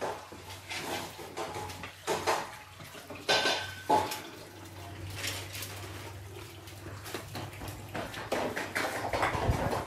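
Intermittent clinking and clattering of metal pots and dishes, with one short ringing clink about three and a half seconds in, over a steady low hum.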